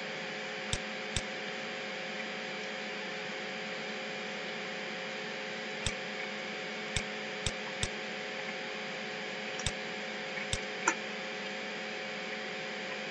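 Computer mouse clicking, about nine short sharp clicks in small groups, over a steady background hiss and hum.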